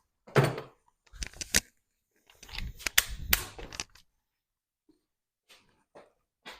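Sharp clanks and knocks of metal tools and parts being handled, in quick clusters over the first four seconds, then a few faint taps.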